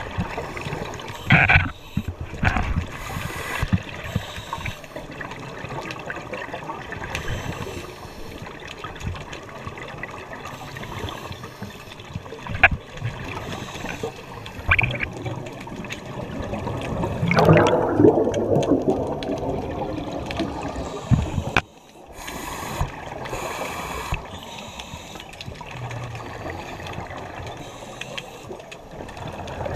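Muffled underwater noise heard through an action camera's waterproof housing, with the gurgle of scuba divers' exhaled bubbles, loudest about seventeen to nineteen seconds in. A few sharp knocks come through the housing.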